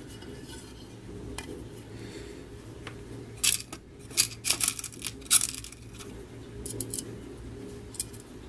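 Small metal washers and screws clinking and rattling in a plastic compartment box as a hand rummages through them for a washer. The clinks come in a quick cluster through the middle, then a few single clicks near the end, over a low steady hum.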